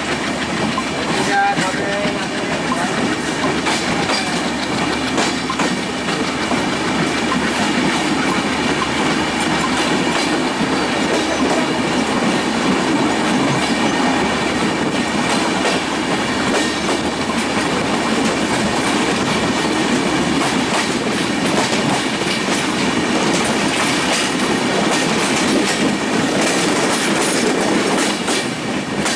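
Passenger train in motion heard from on board its LHB coach: steady rumble and rattle of the wheels on the rails, with clickety-clack over the rail joints.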